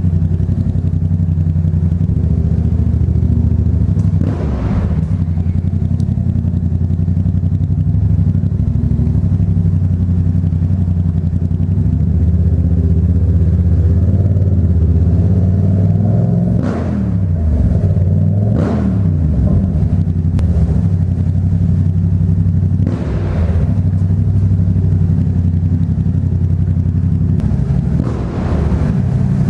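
Yamaha MT-07's 689 cc parallel-twin engine running through an aftermarket Black Widow exhaust, heard from inside the rider's helmet. It holds a steady note for long stretches, and about halfway through its pitch drops and climbs a few times as the rider rolls off and opens the throttle again.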